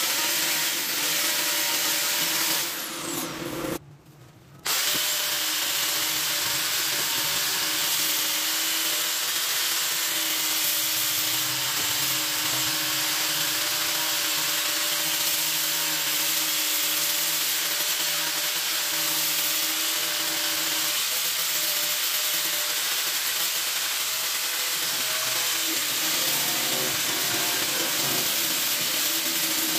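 Hand-held angle grinder with a sanding attachment running steadily while sanding the wood of a carved vase, its motor tone held even under the rasp of the abrasive. The sound drops away abruptly for under a second about four seconds in.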